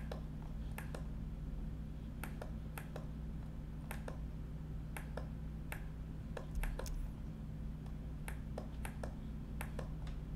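Irregular sharp clicks from a computer mouse and keyboard, about one or two a second, with a few gaps, over a steady low electrical hum.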